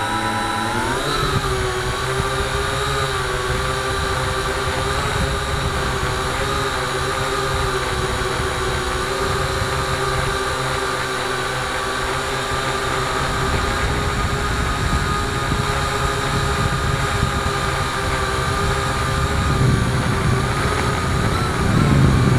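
Multirotor drone's electric motors and propellers spinning up for take-off, their whine rising in pitch over the first second or so and then holding steady, heard from the camera on the drone itself. A low wind rumble grows louder near the end.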